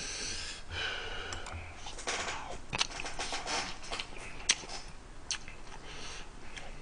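A man eating noodle stew: wet slurping and chewing, with a few sharp clicks of metal chopsticks against the bowls.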